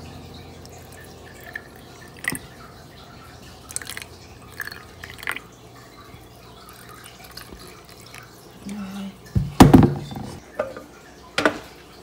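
Water poured from a glass measuring cup into small glass jars, trickling and dripping, with light clicks of glass here and there. A louder cluster of knocks about nine and a half seconds in.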